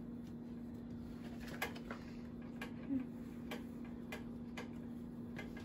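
Hands pressing a dough seal around the rim of a cooking pot's lid, giving scattered faint clicks and taps at irregular intervals over a steady low hum.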